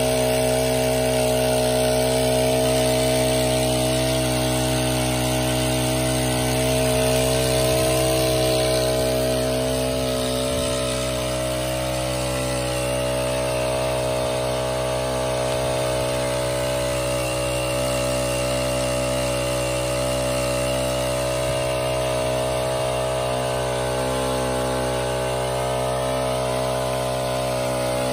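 Small Honda four-stroke petrol engine running steadily at high speed, driving a portable water pump, with the rush of the pumped water jet spraying from the outlet.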